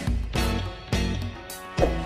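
Background music with a bass line and a steady beat.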